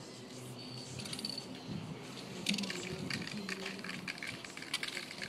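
Aerosol spray-paint can being shaken, its mixing ball rattling in quick metallic clicks, starting about two and a half seconds in.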